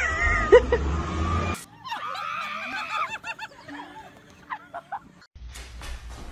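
Voices laughing and squealing, broken by two abrupt cuts, with a low rumble under the first part.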